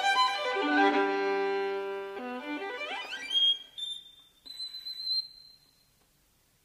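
Unaccompanied violin playing a cadenza: a few held notes, then a fast run rising about two seconds in to a very high, thin note that is held and fades away near the end.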